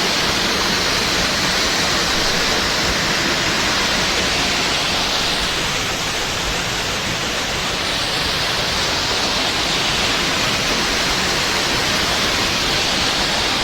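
Steady rushing of Linhope Spout, an 18-metre waterfall pouring into its plunge pool.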